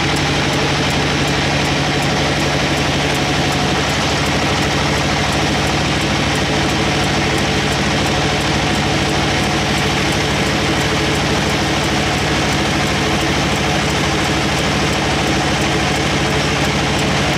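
Log band saw running steadily, its drive giving a low hum under an even mechanical din, with faint regular ticking.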